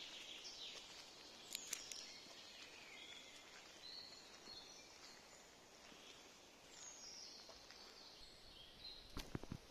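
Faint woodland ambience with scattered short, high songbird chirps. A few sharp clicks come about one and a half seconds in, and a louder quick cluster of clicks near the end.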